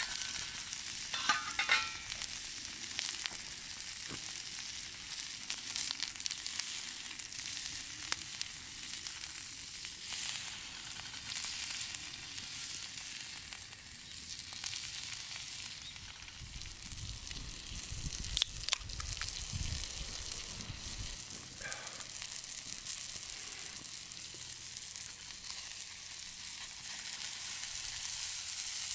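Meat-and-leek skewers sizzling on a small wire grill over a wood fire: a steady frying hiss, with the odd sharp pop.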